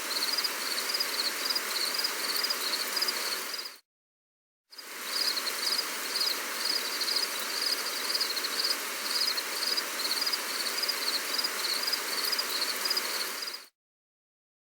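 Gentle rain hissing steadily, with crickets chirping in a regular pulsing rhythm high above it. The sound cuts out abruptly to dead silence for about a second roughly four seconds in, resumes, and stops suddenly about a second before the end.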